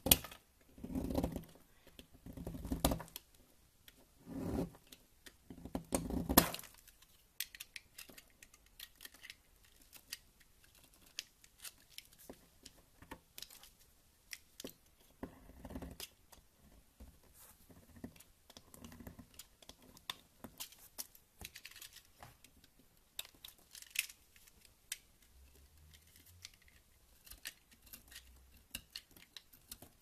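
A small knife cutting and carving a dry, crumbly bar of white soap. There are several loud cuts over the first six seconds, then a long run of lighter crackles and clicks as small pieces are shaved off.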